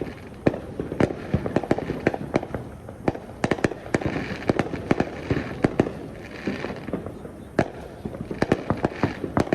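Fireworks and firecrackers going off in a continuous, irregular barrage of sharp bangs and pops, several a second, some much louder than others.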